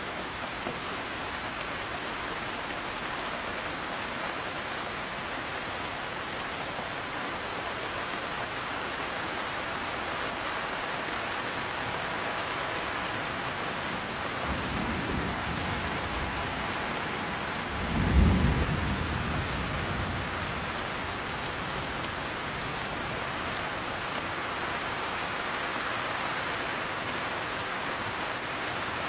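Steady heavy rain. A low rumble of thunder swells a little past halfway, then a louder thunderclap comes a few seconds later and rumbles away over about two seconds.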